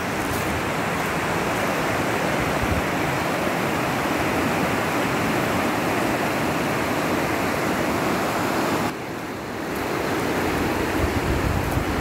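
Fast-flowing mountain creek rushing over rocks in a steady, loud rush of water. The sound drops briefly for about a second near the end, then returns.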